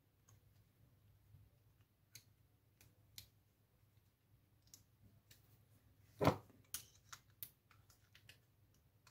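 Small tools and a metal padlock being handled: faint scattered clicks, one louder knock about six seconds in, then a quick run of clicks as the lock is picked up and worked with a tool.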